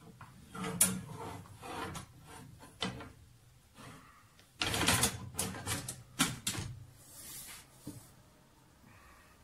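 Hand-operated bending jig forming a flat steel bar into a ring: irregular metallic clicks, knocks and scraping as the bar is worked and handled, with a cluster of loud knocks about five seconds in and a sharp clank about a second later.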